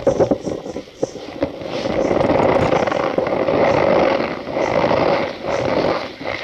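Cornstarch being crushed and squeezed, giving a squeaky crunch. A few sharp crackles come in the first second, then a continuous dense crunching that eases off near the end.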